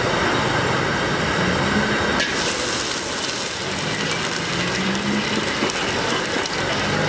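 Busy street din, then about two seconds in a cut to a steady hiss and roar: a high-powered gas wok burner blasting a flaming wok, with food sizzling in it.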